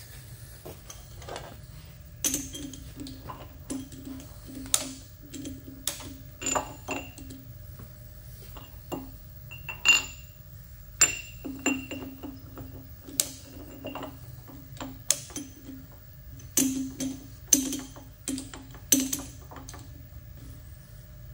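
Irregular metal clinks and knocks as steel parts and tools are handled on a milling machine while a workpiece is swapped on the dividing head for a new pinion blank; several strikes ring briefly. A steady low hum runs underneath.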